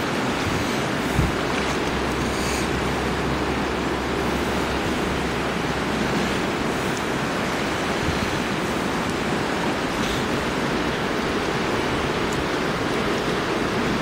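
River water running over a shallow gravel bed: a steady rushing, with a faint low rumble in the first half.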